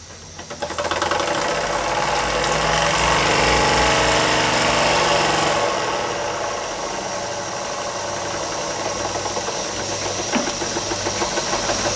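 Jensen Model 70 model steam engine running under steam with a fast, even beat and a hiss of steam. The hiss drops away about six seconds in, and the engine runs on more quietly.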